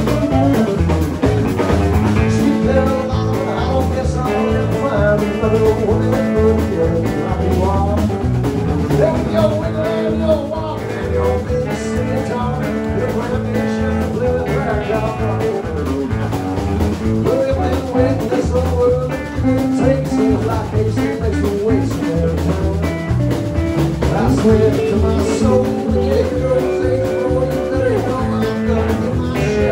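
Live blues-rock band playing: electric guitar over electric bass and a drum kit, loud and continuous.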